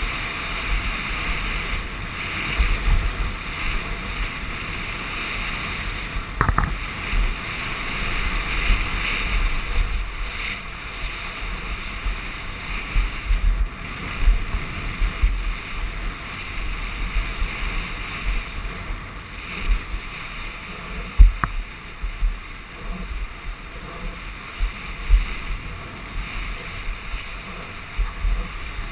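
Wind buffeting a helmet-mounted camera and mountain-bike tyres rolling and skidding over a loose dirt trail on a fast descent. Two sharp knocks stand out, about six seconds in and again about twenty-one seconds in, as the bike hits bumps.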